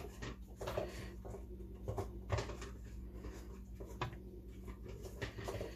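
Dishes knocking and clattering at irregular intervals as dogs lick them clean, over a steady low hum.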